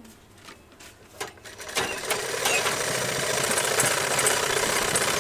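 Vehicle engine running on the move with road and wind noise. It is faint at first and rises to a steady level about two seconds in.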